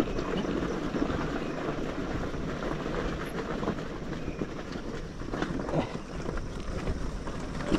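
Motorcycle rolling down a stony dirt track: tyres crunching over loose rock and gravel, with the bike rattling and knocking as it jolts over the stones.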